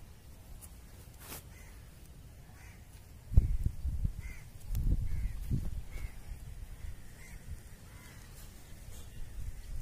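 A bird gives short calls about once a second. From about three seconds in, loud low thumps and rumbles hit the microphone, the sharpest one coming first.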